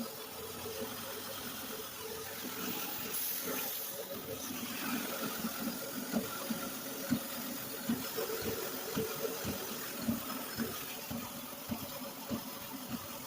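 An engine running steadily, with irregular short knocks that come more often from about five seconds in.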